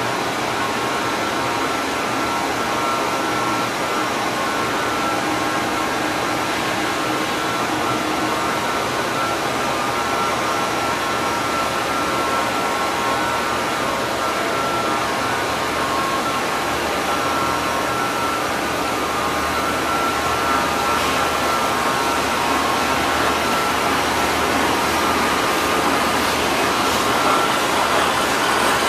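Steady running noise of stainless tube mill machinery: electric drive motors and roll stands, with a few steady high whining tones over a broad mechanical hum. It grows slightly louder near the end.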